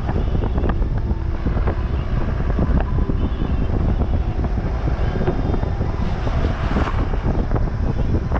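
A Tata Sumo on the move, its engine and road rumble running steadily, with knocks and rattles and wind buffeting the microphone. A louder rush of noise comes about six seconds in.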